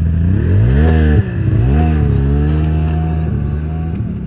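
Snowmobile engine idling and revved up twice in quick succession, the pitch rising and falling each time, then settling back to a steady run.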